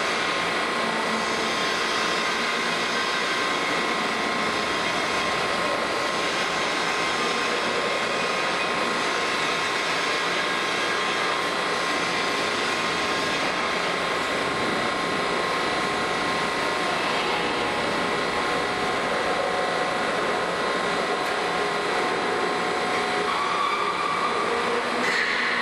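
Plate rolling machine running steadily as its rolls bend a thick steel plate: a constant mechanical drone with a steady high whine over it.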